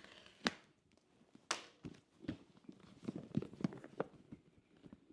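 Cardboard Apple Vision Pro box being opened by hand after its tear strips are pulled: two sharp clicks about half a second and a second and a half in, then a run of small knocks and taps as the packaging is handled.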